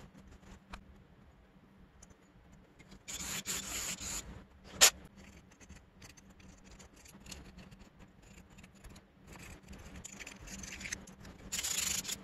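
Shop towel rubbing and wiping an aluminium carburetor float bowl cover, with scuffing patches and one sharp click just before five seconds in.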